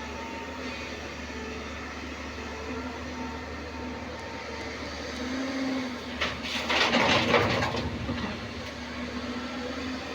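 JCB NXT 205 excavator running steadily with a low engine hum. About six seconds in, a louder stretch of clattering noise lasts about a second and a half.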